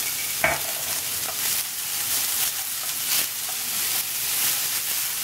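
Sliced onions sizzling in hot coconut oil in a frying pan as they are sautéed to soften, stirred with a wooden spoon. The spoon scrapes and knocks against the pan at irregular moments, loudest about half a second in.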